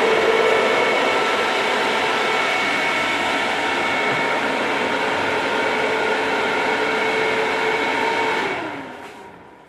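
Rexton in-line duct fan running with a steady rushing whir and a few held tones. Near the end it spins down, its pitch falling as the sound fades away.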